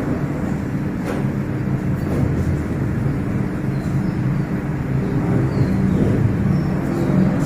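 A steady low mechanical hum with several held pitches, with a few faint short high chirps above it.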